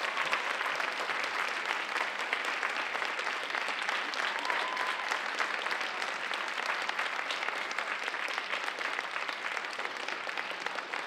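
Audience applauding steadily, a dense patter of many hands clapping that tapers slightly near the end.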